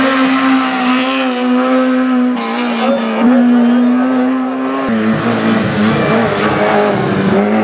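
Racing car engines at high revs: a Honda Civic holds a steady high-pitched note, dipping briefly twice, then about five seconds in the sound cuts abruptly to another car's engine, a little lower and rougher.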